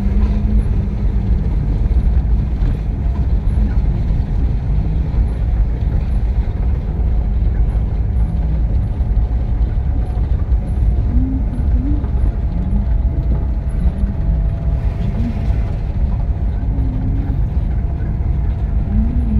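Inside the cab of a Mitsubishi Triton pickup on the move: steady low engine and tyre rumble with no gear changes or stops.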